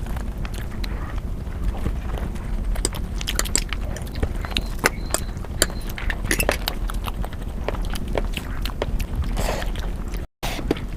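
Eating sounds: chewing and crunching, with many short sharp clicks, over a steady low hum. The sound drops out for a moment near the end.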